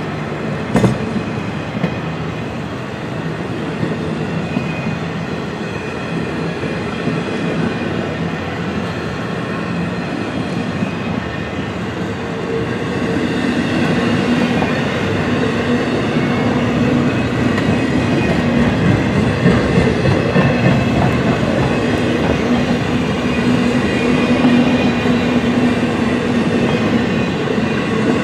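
An intermodal freight train's cars roll past with the continuous rumble and clatter of steel wheels on rail. A steady droning tone joins about twelve seconds in and the sound grows louder.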